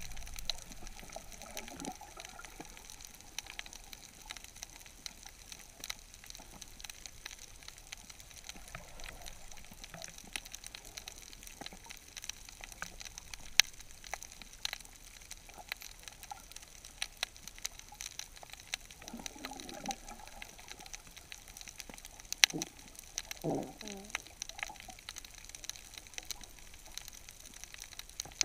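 Underwater ambience: a steady hiss with scattered sharp clicks and crackles, and two brief low gurgles about two-thirds of the way through.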